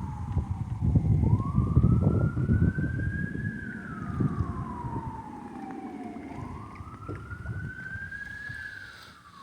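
Emergency-vehicle siren in wail mode, each cycle rising over about a second and falling slowly over about three, twice, over low rumbling noise that is heaviest in the first few seconds.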